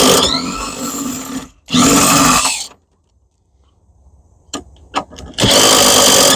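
Handheld power tool running in bursts while backing out bolts: it runs and winds down with a falling pitch in the first second, runs again briefly about two seconds in, and starts up once more near the end, with a few sharp clicks in between.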